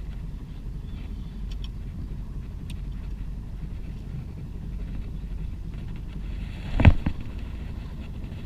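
Steady low rumble of a boat at sea, with one sharp loud thump near the end.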